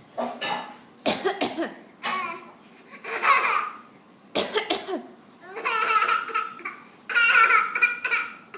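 A young child coughing in about seven short bouts, several of them high-pitched and laugh-like.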